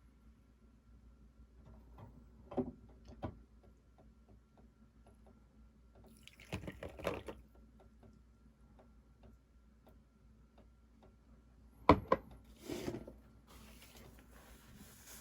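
Home drink-making sounds: small clinks and knocks of cups and utensils, with a short stretch of liquid pouring about halfway through, a sharp clink near the end, and a steady hiss after it.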